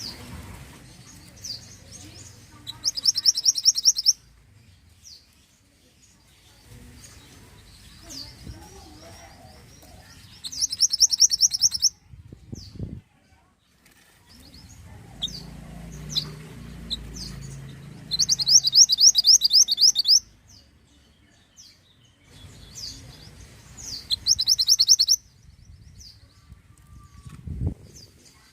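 Minivet (mantenan) singing: four fast, high trills of rapidly repeated notes, each about a second long, with scattered short chirps between them.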